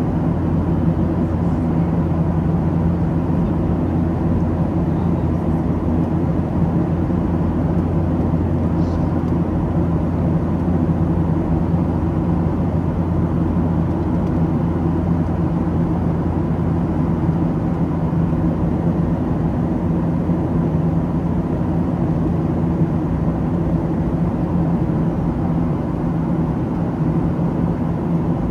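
Steady cabin drone of a Boeing 737-700 at cruise, heard inside the cabin: the CFM56-7B turbofans and the rush of air over the fuselage, a constant roar with a low hum beneath it.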